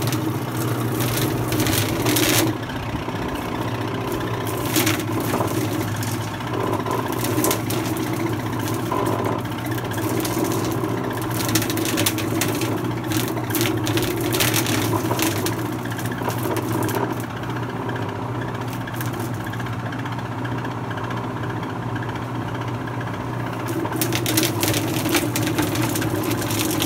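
Homemade chicken plucker running steadily, its motor humming while the spinning roller beats against a chicken held to it, with irregular slapping as the feathers are stripped.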